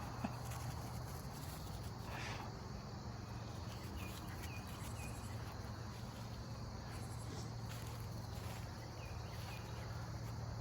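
Faint outdoor ambience: a steady low hum with a few faint short chirps from insects or birds, and one small click just after the start.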